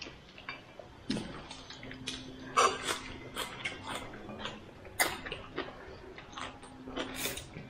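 Scattered clicks, taps and clinks of dishes and utensils being handled at a meal.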